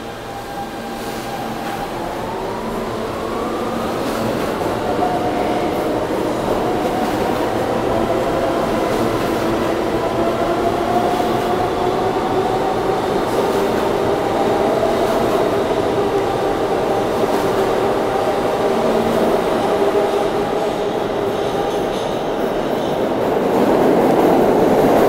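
R160B subway train pulling out of the station, its traction motors whining upward in pitch as it picks up speed over the rumble of wheels on rail. Near the end, another train's running noise on the far track grows louder.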